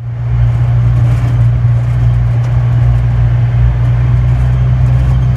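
Steady low drone of a motor vehicle's engine and road noise while driving, an even hum with no change in pitch.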